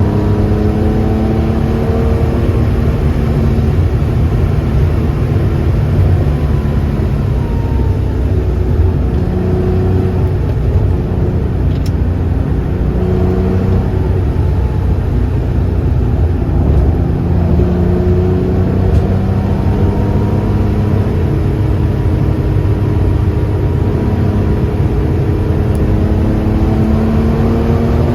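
Porsche 2.7 RS-spec air-cooled flat-six running under way, its engine note rising and falling repeatedly over a heavy low rumble of engine and road noise.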